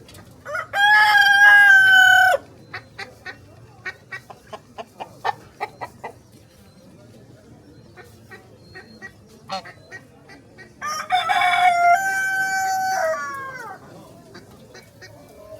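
A rooster crowing twice, two long calls about ten seconds apart, the second falling in pitch at its end, with a run of short clucks between them.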